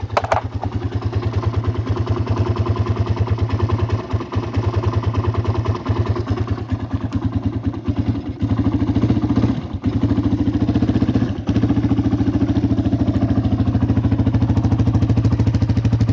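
Honda CRF150 dirt bike's single-cylinder four-stroke engine running cold after months of sitting, faltering briefly several times in the first half as if about to die, then settling into a steady, even run near the end.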